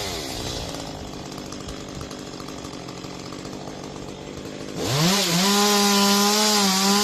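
Chainsaw engine dropping off full throttle to a quieter idle at the start, idling for nearly five seconds, then revving back up near the end and holding at full throttle.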